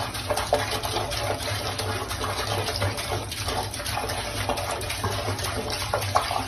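Water running steadily from a tap into a sink, splashing irregularly, over a low steady hum.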